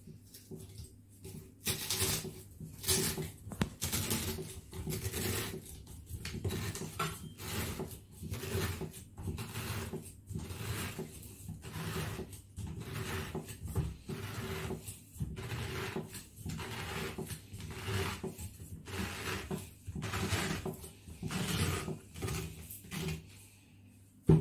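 Pineapple corer-slicer being twisted down through a pineapple's flesh, a run of irregular crunching, rasping strokes about two a second as the blade cuts and the tool turns, ending with a sharp knock.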